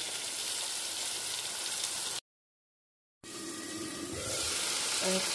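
Sliced onions frying in hot oil in a pan, a steady sizzling hiss. The sound cuts out completely for about a second midway, then the sizzle resumes.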